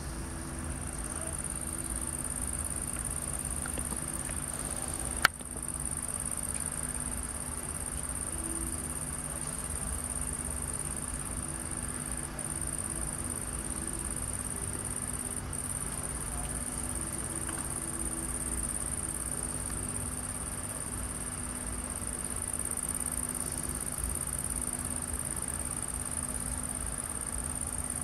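Insects, crickets or bush crickets, chirring in a continuous high-pitched band over a low steady hum. A single sharp knock about five seconds in is the loudest sound.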